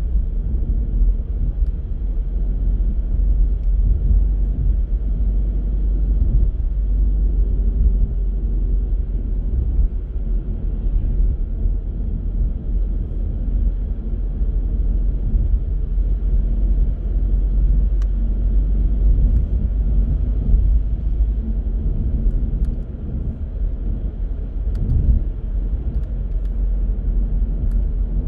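A car driving, heard as a steady low rumble of road and engine noise, with a few faint ticks.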